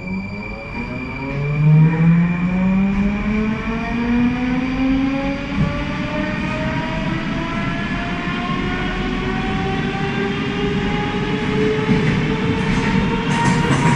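Rusich (81-740/741) metro train pulling away from a station, heard from inside the car: its traction motors whine in several tones that rise steadily in pitch as the train accelerates, over the low rumble of the wheels on the rails.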